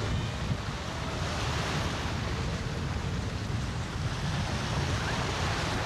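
Small sea waves washing through the shallows, the surf swelling and easing, over a steady rumble of wind on the microphone.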